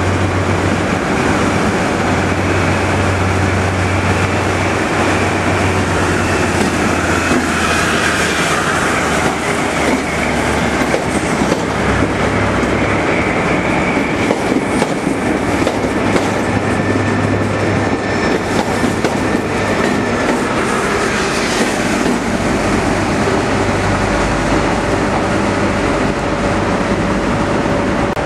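Class 43 HST power cars with Paxman Valenta diesel engines hauling the train slowly past on light power, not worked hard: a steady low engine hum with a faint high whine above it, and the wheels clicking over rail joints.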